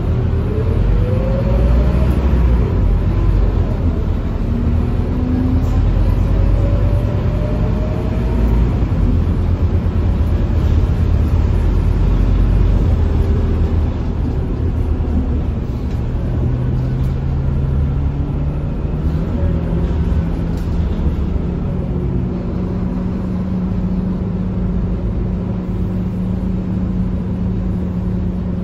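Scania K230UB bus heard from inside the cabin while under way: the engine's low drone with the whine of its loud ZF automatic gearbox, which rises in pitch near the start and again several seconds later, then settles into a steady hum in the second half.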